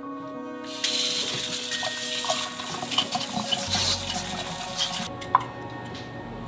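Kitchen faucet spraying water onto potatoes in a metal colander in a stainless steel sink to rinse them. It comes on about a second in and shuts off about a second before the end. A single light knock follows shortly after.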